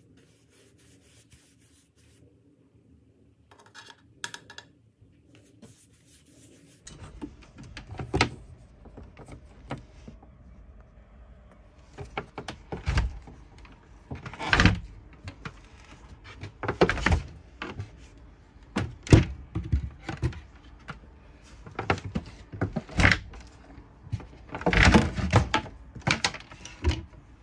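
Irregular knocks and thuds with rustling from hands-on work inside a small boat cabin: panels, tools and a cable being handled. The first few seconds are nearly silent, then the knocks come every second or two, the loudest near the middle and again near the end.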